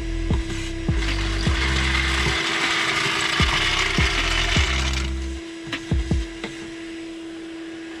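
Background music with a steady kick-drum beat about every 0.6 seconds and a deep held bass line. From about one to five seconds in, a dense rasping, ratchet-like noise runs over it.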